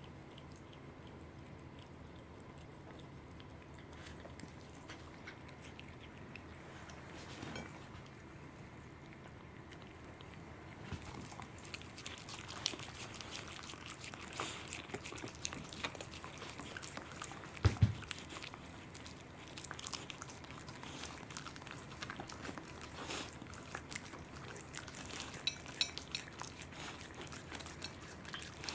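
A corgi and a cat chewing and smacking on salmon: fairly quiet at first, then from about eleven seconds in a rapid run of wet, clicky mouth sounds close by. One low thump about two-thirds of the way through is the loudest sound.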